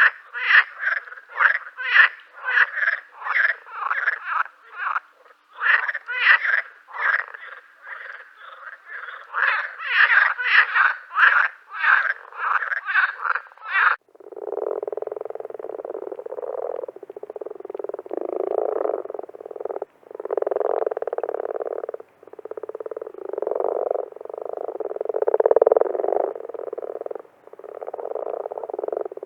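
Frogs croaking in quick, separate calls, several a second. About halfway through it cuts abruptly to a lower, denser chorus of frogs croaking almost without a break.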